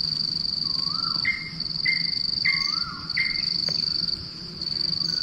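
Steady high-pitched insect trill, as of a cricket, running on without a break, while a bird calls repeatedly: short rising whistles and a series of sharper notes about one every half second or so through the middle of the stretch.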